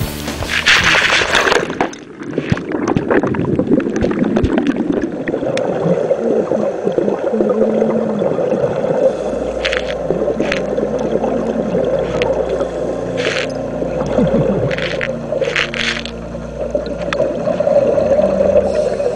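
Water churning and splashing at the sea surface for the first couple of seconds. Then a muffled underwater rumble follows, broken by short gurgling bursts of scuba bubbles, about half a dozen of them.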